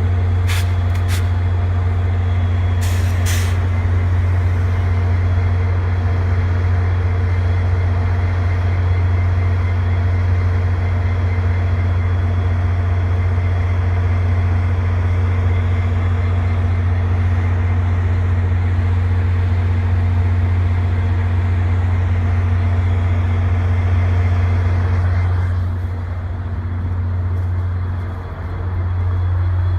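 Diesel locomotive of a Via Rail passenger train running steadily with a loud low hum, with short sharp air hisses near the start. About 26 seconds in the higher rushing noise drops away, and the level dips briefly near the end.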